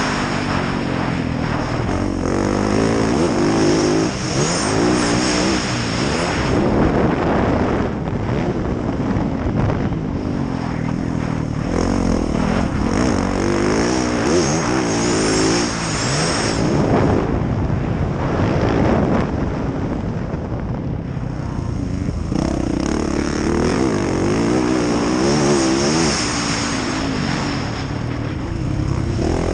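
Yamaha YZ450F single-cylinder four-stroke dirt bike engine being ridden hard, its revs climbing and dropping over and over with throttle and gear changes.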